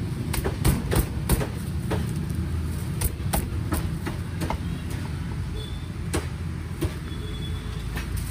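A steel cleaver chops through crisp-skinned roast boneless pork leg on a wooden chopping block. The sharp chops come in quick irregular runs in the first few seconds, then as a few spaced blows, over a steady low background rumble.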